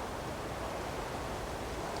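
Steady forest ambience: an even rushing noise with a low rumble underneath, with no distinct events.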